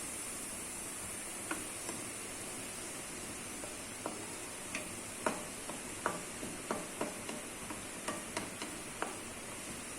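Cumin seeds popping and spluttering in hot oil: irregular sharp pops, sparse at first and coming more often after about four seconds, over a faint steady sizzle.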